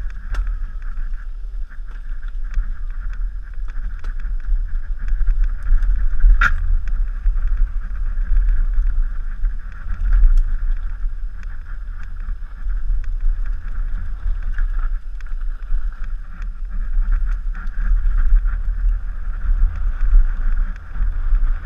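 Downhill mountain bike descending a rough dirt trail: wind rumbling on the rider-mounted camera's microphone, with the bike clattering and knocking over bumps. One sharp knock stands out about six seconds in.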